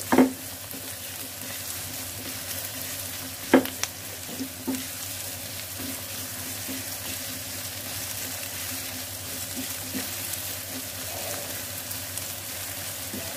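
Chopped onions sizzling in hot oil in a nonstick frying pan as they are stirred with a silicone spatula. There are two sharp knocks, one at the start and one about three and a half seconds in, and a few lighter ones.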